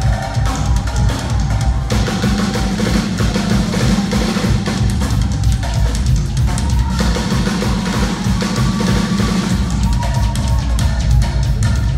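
A live band playing an instrumental passage, loud: a drum kit's kick, snare and cymbals keep a steady beat, with held keyboard tones above it.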